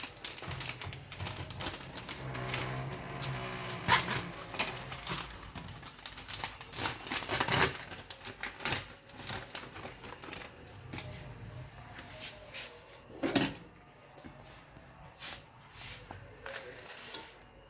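A metal spoon and a pot clicking and clinking as dried fenugreek leaves are tipped into hot oil and stirred, with a few louder knocks, the loudest about thirteen seconds in.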